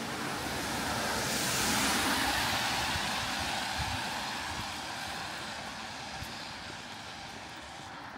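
A car passing on a wet road: the hiss of its tyres swells about a second and a half in, then fades away slowly, over steady rain.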